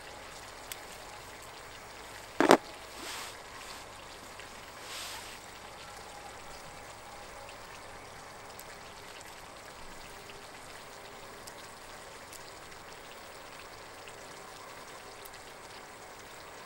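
A steady, even hiss, with one sharp knock about two and a half seconds in and a few faint ticks later.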